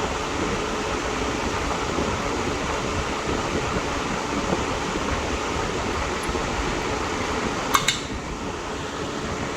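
Steady whooshing noise like a running fan, with two sharp clicks close together near the end.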